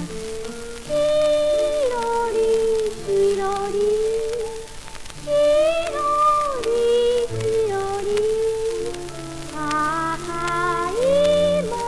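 A 78 rpm record of a Japanese children's song playing. A girl's voice sings the melody, coming in about a second in, over a small orchestra, with faint record surface crackle.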